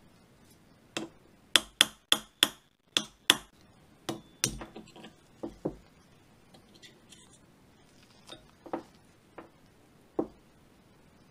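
Plastic-headed mallet striking a steel pin punch to drift out the hammer bar pin of a Desert Eagle Mark XIX frame: about nine sharp taps in quick succession, followed by a few lighter clicks and knocks.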